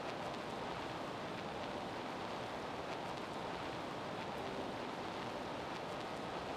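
Steady, even background noise of a gymnasium during a basketball game, with a few faint ticks.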